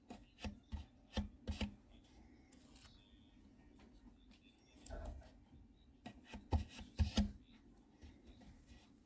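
A series of sharp clicks and knocks in two clusters, one starting just after the beginning and one around six to seven seconds in, with a single duller knock near five seconds.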